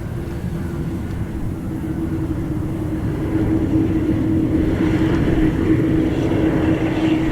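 Jet aircraft engine noise, a steady rumble with a humming tone, growing louder about three seconds in.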